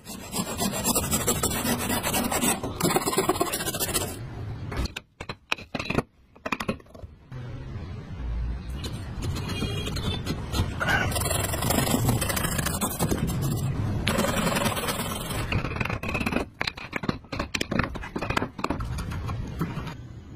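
Hand saw strokes rasping through wood, then a few sharp knocks of wood on wood, then more scraping and rubbing as wooden joint pieces are worked and fitted together.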